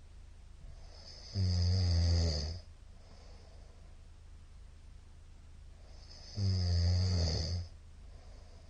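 A middle-aged man snoring in his sleep: two loud snores about five seconds apart, each lasting a little over a second.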